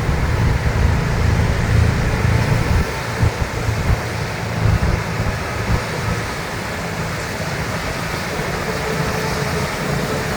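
Heavy snow-removal vehicle engines running, a steady low rumble.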